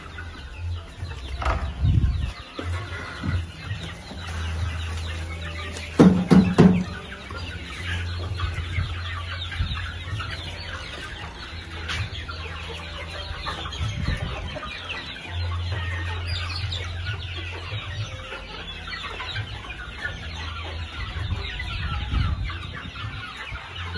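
A large flock of young chickens clucking continuously around a feeder. A brief loud knock comes about six seconds in.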